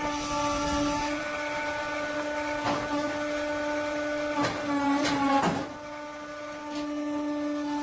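Wimmer band sawmill running with a steady motor hum. A few knocks and clanks come in the middle, the loudest just past five seconds in.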